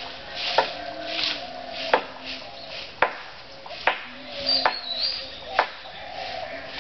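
Short broom swishing over a dirt path in repeated strokes, with sharp knocks about once a second and a brief high chirp about halfway through.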